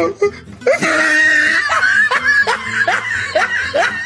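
A person laughing hard: a high, drawn-out squeal about a second in, breaking into a rapid run of short falling 'ha' bursts.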